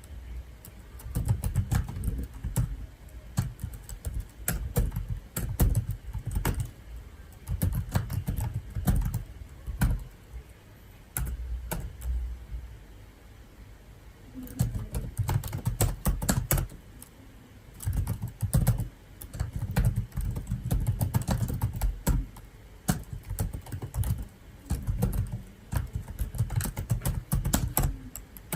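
Typing on a computer keyboard in bursts of rapid key clicks with a dull low thud under the keystrokes, broken by short pauses.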